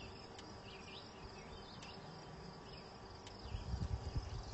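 Honeybees humming faintly and steadily on an open brood frame, with some low rumbling near the end.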